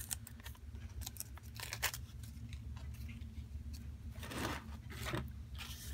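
Paper and fabric cutouts and an altered book being handled on a cutting mat: small taps and soft rustles, with a longer rustle a little after four seconds and again near the end. A steady low hum runs underneath.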